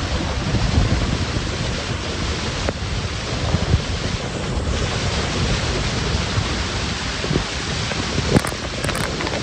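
Wind buffeting the microphone over a steady rushing noise, with a few short bumps.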